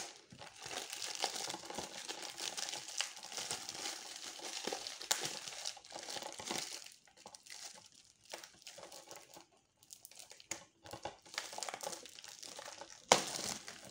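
Plastic shrink wrap being torn and peeled off a Blu-ray case, crinkling irregularly, with quieter stretches in the middle. A sharp snap near the end is the loudest sound.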